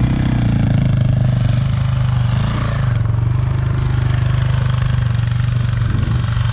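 Dirt bike engine running at a steady speed, its pitch holding level.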